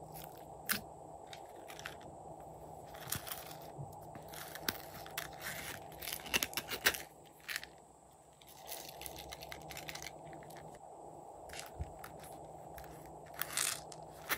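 Light crackling, clicking and scraping from fingers handling slime and a small zippered coin purse. A cluster of sharper clicks comes about six to seven seconds in, and more come near the end.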